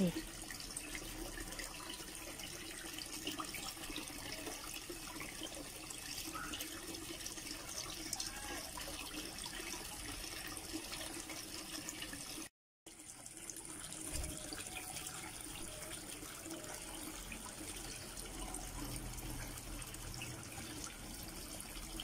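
Aquarium water running and bubbling steadily from the tank's filter and aeration. The sound cuts out for a moment a little past halfway.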